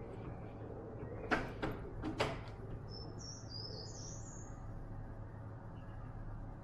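Three sharp knocks in quick succession about a second in, then a bird calling once with a short run of high chirping notes, over a steady low hum.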